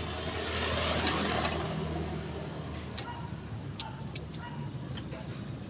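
A motor vehicle passing by, its noise swelling over about the first second and fading away, followed by a few light clicks.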